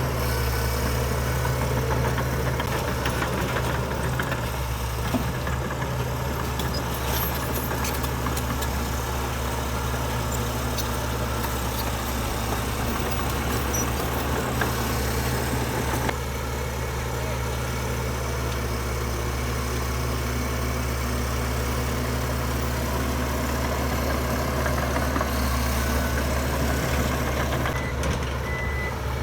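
Heavy diesel earthmoving machinery running steadily at a constant engine note. A reversing alarm starts beeping near the end.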